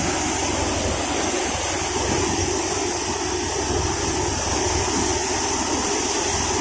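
A paddy thresher running steadily, its threshing drum and fan making a dense continuous rush as grain pours from the chute. A low engine hum runs beneath it, from the tractor behind the thresher.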